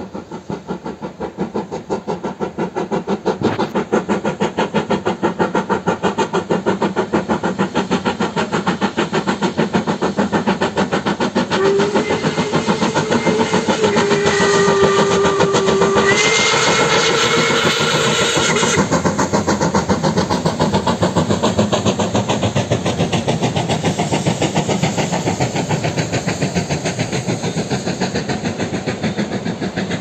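Steam locomotive hauling a train, working steadily with rapid, even exhaust chuffs that grow louder over the first few seconds. About twelve seconds in its steam whistle blows one long blast of several seconds, stepping up in pitch shortly before it stops.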